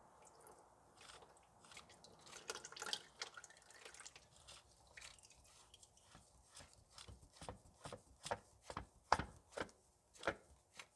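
Engine oil dripping from a loosened oil filter into a drain pan: scattered drips at first, then a steadier run of about two drips a second.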